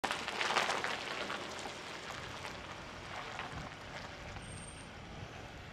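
Rumble and hiss of a distant explosion. It is loudest about half a second in, then slowly dies away.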